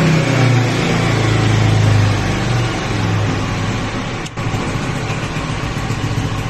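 Honda PCX160 scooter's single-cylinder four-stroke engine through a Kalkal tube-type aftermarket exhaust, held at a fast idle, then settling about two and a half seconds in to a lumpy, pulsing idle, with a brief dip in the sound about four seconds in.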